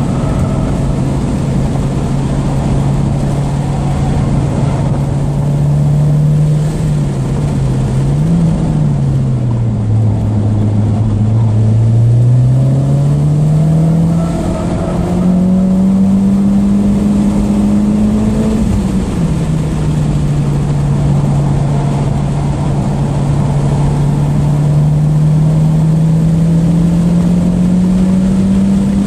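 Mitsubishi Lancer Evolution X's turbocharged 2.0-litre four-cylinder engine heard from inside the cabin at speed on a track, over steady road and wind noise. The engine note holds steady, falls away about a quarter of the way in as the car slows, then climbs under acceleration. It drops suddenly, as at a gear change, about two-thirds of the way through, and climbs slowly again toward the end.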